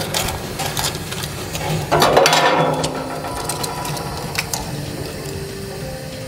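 Clicks and rattles of hand tools and metal parts being worked on a gas heater's main burner air inlet, with a louder rattling stretch about two seconds in.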